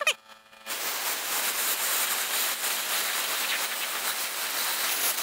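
Vevor plasma cutter's arc hissing steadily as it cuts through thick steel angle. It starts about a second in and stops just before the end. A short pitched chirp sounds at the very start.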